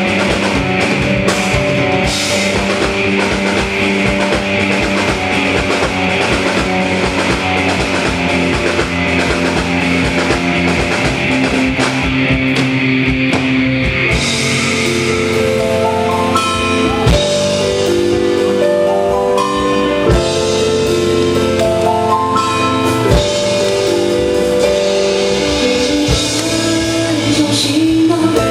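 Live rock band playing a loud, steady passage on drums, bass and keyboards. About halfway through, the sound changes to clearer, held notes.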